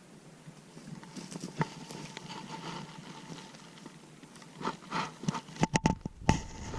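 Footsteps and rustling of someone walking over brushy ground, with a quick run of sharp knocks and thumps near the end.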